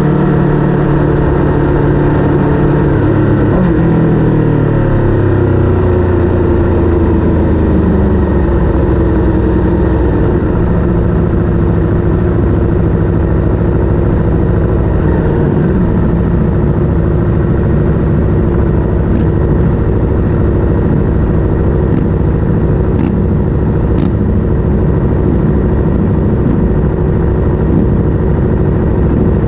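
Racing engine running loud and close. Its revs fall over the first several seconds, then it runs on at a steadier pitch.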